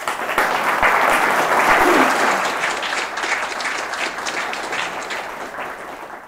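Audience applauding. It starts at once, is loudest in the first two seconds, thins out gradually, then cuts off abruptly at the very end.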